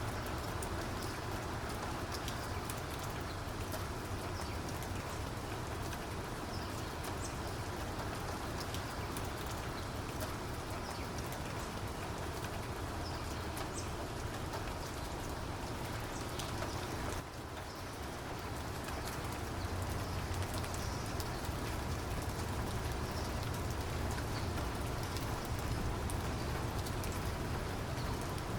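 Steady rain falling, with individual drops ticking through the patter. It drops briefly in level about two-thirds of the way through.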